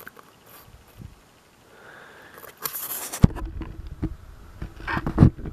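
Handling noise from a small diecast model aircraft being picked up and turned over in the hand. A short rustle is followed by a sharp knock, then small clicks and bumps, with another knock near the end.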